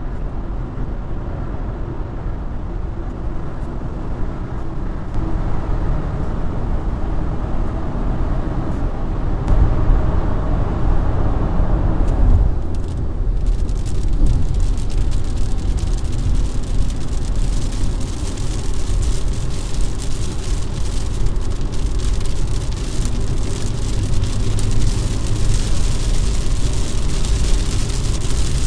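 Car cabin road and engine noise while driving at speed. About 13 seconds in, a dense patter of raindrops hitting the car joins in and runs on.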